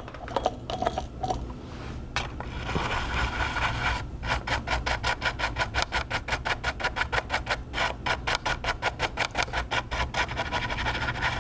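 Rapid back-and-forth scrubbing on a circuit board, cleaning the charging-port pads with isopropyl alcohol after desoldering. The rubbing turns into a quick, even rhythm of about five or six strokes a second about four seconds in.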